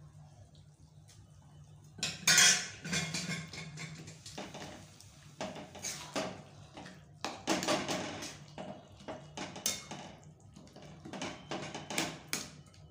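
A long metal ladle stirring spinach saag in a metal kadai, scraping and clinking against the pan in repeated short bursts that start about two seconds in.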